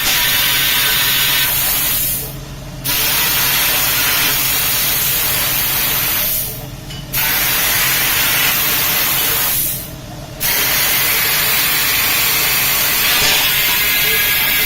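CNC plasma cutter running on pipe: a loud, steady hiss of the cutting arc and air jet. It cuts out briefly three times and comes straight back.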